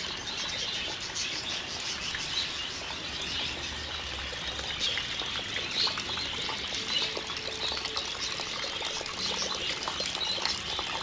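Steady rain falling and dripping, with small caged birds chirping now and then.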